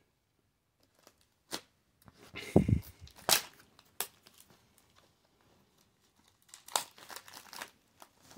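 Plastic shrink wrap being torn and crinkled off a Blu-ray box set, in several short bursts of crackling. A dull bump of the box being handled sits under the loudest burst about two and a half seconds in.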